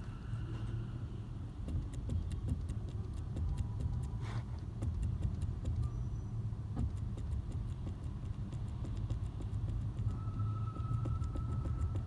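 A 2008 Toyota Corolla running with a steady low drone, with many light clicks and knocks and a stronger knock about four seconds in. These are the clunks the owner cannot trace. A short steady tone sounds near the end.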